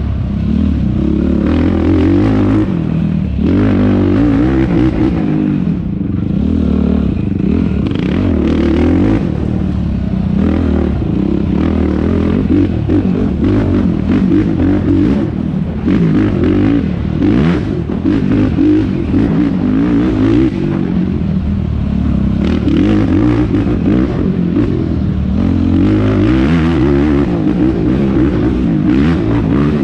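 Yamaha YFZ450R quad's single-cylinder four-stroke engine under race throttle, revving up and down constantly through gear changes, with knocks and clatter from the machine over rough ground.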